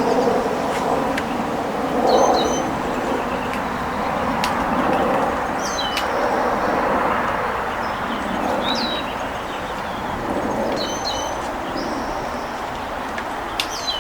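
Wind buffeting the microphone with a steady rumble, while a songbird gives short, high chirps every second or two.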